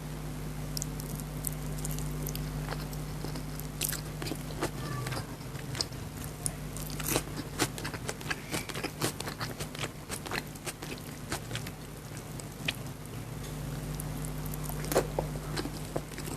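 Close-miked eating of chicken biryani: irregular wet chewing, biting and crunching with many sharp mouth clicks and smacks, over a steady low hum.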